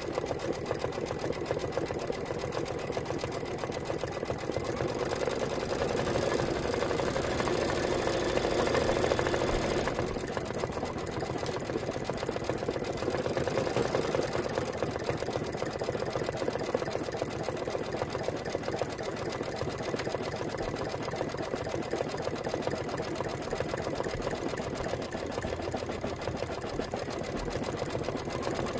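Embroidery machine stitching out a design, the needle running fast and evenly. It is a little louder for a few seconds in the first third.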